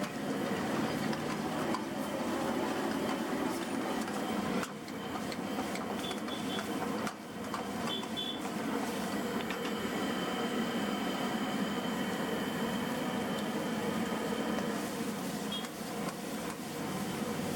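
A steady mechanical running noise with a constant hum. It dips briefly twice, and a few short high clinks come through about six and eight seconds in.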